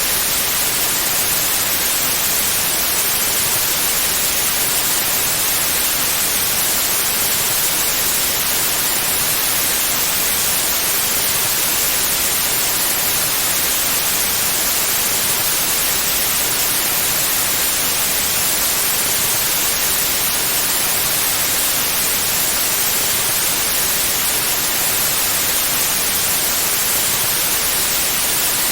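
Steady synthetic white noise: an even, unchanging hiss, brightest in the treble.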